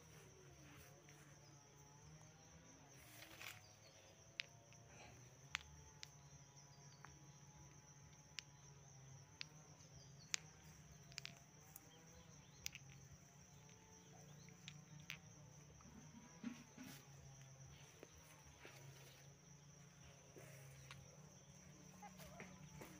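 Quiet outdoor ambience: a steady high insect trill, with scattered faint sharp clicks.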